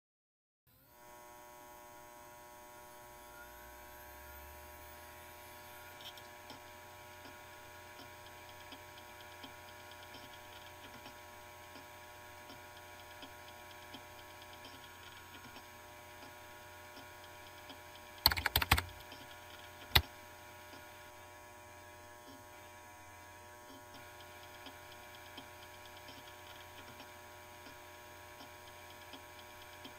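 Steady electrical hum of a computer starting up, with a faint rising whine in the first few seconds. A little past the middle comes a quick burst of keyboard typing, followed about two seconds later by a single sharp key or mouse click.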